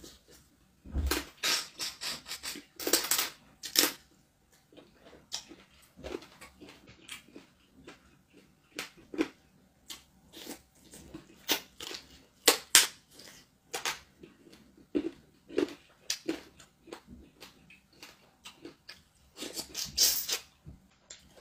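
Close-miked eating sounds: wet chewing, lip smacks and sucking as a man bites chicken from pepper soup and licks his fingers, in irregular clusters of sharp smacks.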